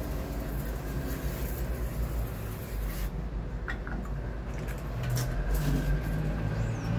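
Hand-pump tank sprayer misting coil cleaner onto air-conditioner filters: a soft hiss that stops about three seconds in, over a steady low rumble, with a few light knocks afterwards.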